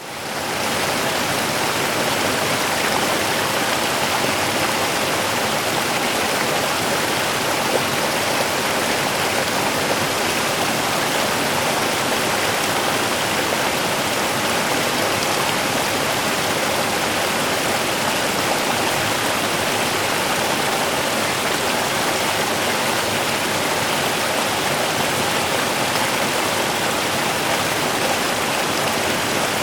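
Small river running steadily, water rushing and splashing over stones, fading in over the first half second.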